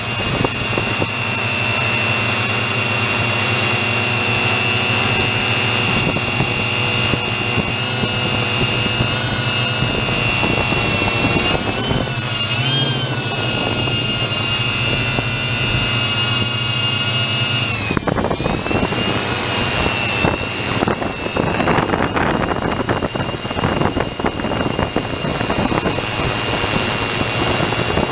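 Small quadcopter drone's electric motors and propellers whining steadily, heard from its onboard camera. The pitch wavers briefly about halfway through, and from about two-thirds in, wind buffets the microphone.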